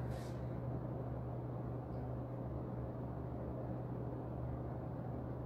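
Steady low hum with a faint even hiss: room tone.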